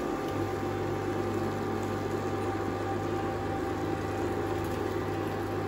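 Egg-soaked bread frying in a pan of melted butter, with a steady hum and fan noise from the cooktop beneath it.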